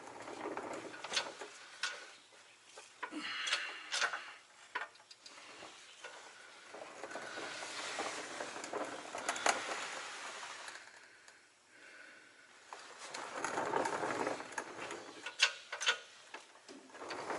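Irregular metal clinks, knocks and scraping from hands-on shop work as a heavy truck transmission is handled and positioned for mounting.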